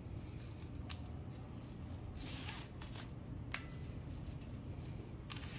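Nylon webbing being threaded and pulled by hand around the valve neck of a scuba cylinder: rustling swishes with a couple of small sharp clicks, over a steady low hum.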